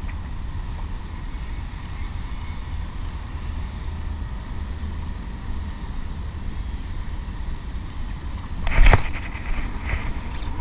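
Steady low wind rumble on the camera microphone, with a brief loud burst of noise about nine seconds in. A few light ticks follow as the baitcasting reel is wound in.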